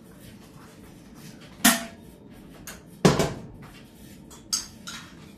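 Kitchen clatter of dishes and utensils being handled: two sharp knocks about a second and a half apart, the second the loudest and ringing briefly, then a couple of lighter clicks.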